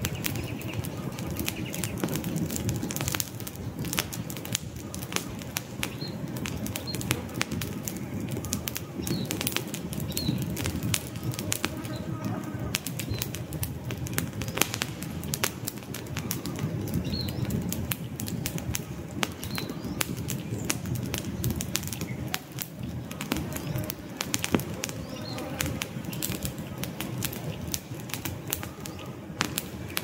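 Wood campfire burning: frequent sharp crackles and pops from the burning sticks over a steady low rush of flame. A few faint, short high bird chirps sound now and then.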